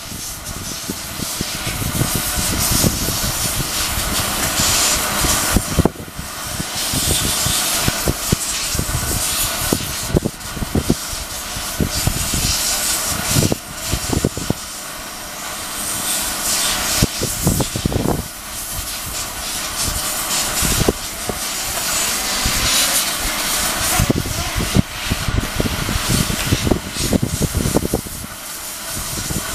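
Loud rushing hiss that swells and fades every few seconds, with irregular low rumbling knocks, like wind buffeting the microphone.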